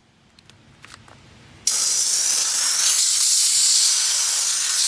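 Compressed-air blowgun blasting a steady, loud hiss into a disassembled electric radiator fan motor, blowing dirt out of its brush plate and armature. The blast starts about a second and a half in.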